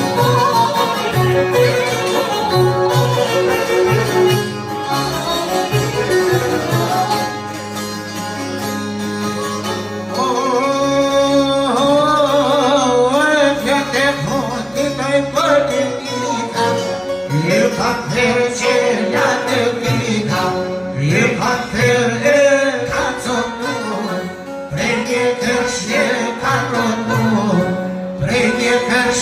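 Albanian folk music: singing with string accompaniment, fiddle among it, over a steady beat. The pitched melody lines waver in a vibrato and become more prominent about a third of the way in.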